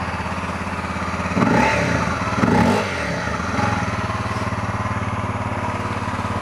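Honda CRF250L's single-cylinder four-stroke engine idling steadily through its modified stock muffler, with two brief throttle blips about one and a half and two and a half seconds in. The owner thinks the muffler's packing is clogging and letting it run louder.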